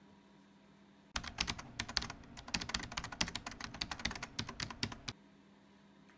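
A rapid, uneven run of light clicks and taps, starting about a second in and stopping suddenly some four seconds later.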